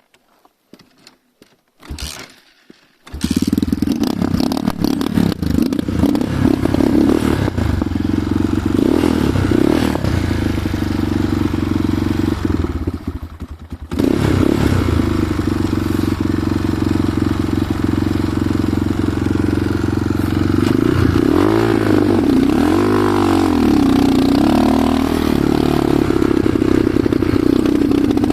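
Enduro motorcycle engine running, starting suddenly after a few seconds of near quiet. Its note rises and falls with the throttle, and it dips briefly about halfway through.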